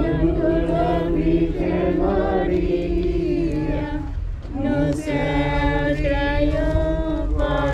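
Mourners singing a hymn together as a group, in long held notes, with a brief break about four seconds in.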